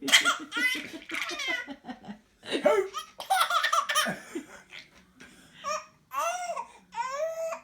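Baby with the hiccups laughing in several bursts, with high rising-and-falling calls near the end.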